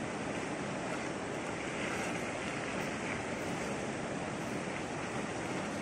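Steady rushing of a swollen river running fast over rapids.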